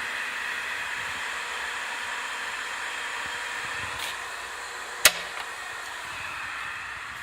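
Amada drill grinder running, a steady whirring hiss with faint steady tones. A sharp click sounds about five seconds in.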